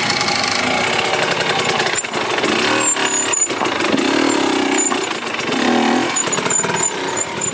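Dirt bike engine running loud and close, with the revs rising and falling.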